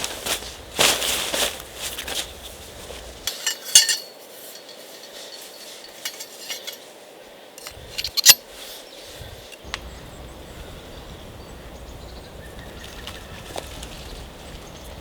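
Metal camp cookware or utensils being handled: rustling and clattering, then a few sharp clinks, the loudest about eight seconds in. After that only a steady background hiss.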